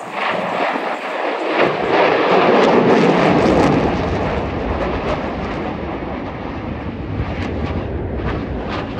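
A fixed-wing aircraft flying past a display crowd. Its engine noise swells over the first two seconds, is loudest about three seconds in, then eases to a steady, lower noise.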